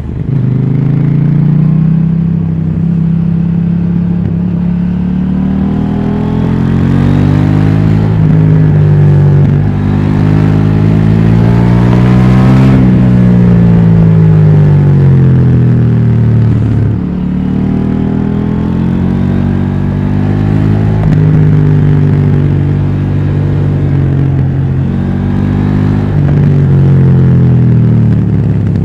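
KTM 790 Duke's parallel-twin engine through its stock exhaust, accelerating and slowing on the road: the pitch climbs in long pulls, each broken by a brief dip at a gear change, then falls away as the rider rolls off, and climbs again.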